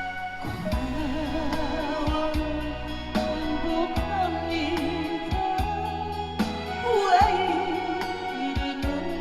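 A woman singing a Korean pop ballad live over backing music with a steady beat, her voice wavering with vibrato.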